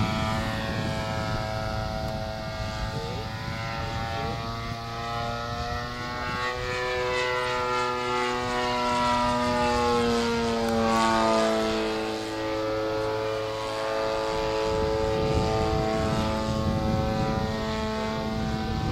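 Radio-controlled model airplane flying past, the drone of its motor and propeller steady in level, its pitch gliding up around the middle and then down again.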